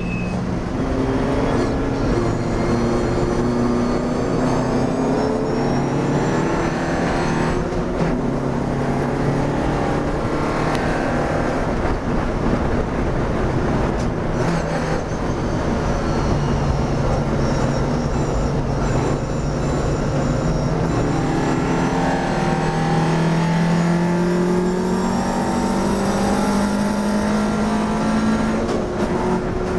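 Classic racing car's engine heard from inside the cockpit, working hard under acceleration. Its pitch drops and climbs several times, then rises steadily through the last dozen seconds, over constant wind and road noise.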